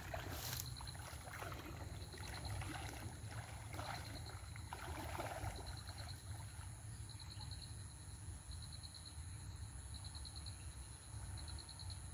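River water sloshing and swishing around a person's legs as he wades out thigh-deep, with a high chirping call in short rapid trains repeating every second or two.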